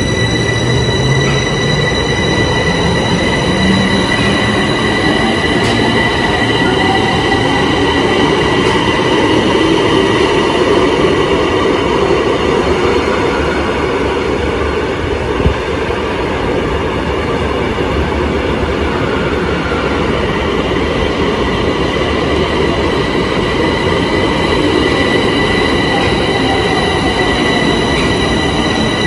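Bombardier metro train running through the station, with a steady high electrical whine and a low motor tone that rises in pitch over the first few seconds. A single sharp click comes about halfway through.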